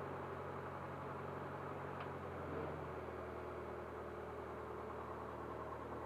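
Cessna 152's Lycoming O-235 four-cylinder engine running steadily at low power on the ground. Its pitch steps slightly lower between two and three seconds in, and there is a faint click about two seconds in.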